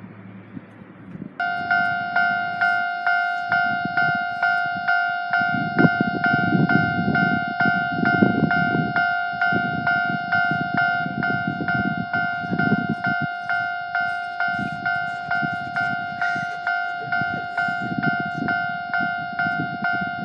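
Japanese railway level-crossing warning bell starting about a second in, ringing a steady two-tone clang over and over at an even pace, which signals that a train is approaching and the crossing is closing. A low rumble swells and fades beneath it.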